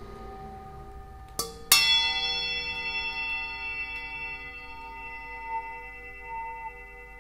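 A bell-like metal instrument, such as a singing bowl or bell, is struck lightly and then hard about a second and a half in. It rings on with many steady overtones that die away slowly, one of them pulsing slowly. Fainter ringing from an earlier strike is under it at the start.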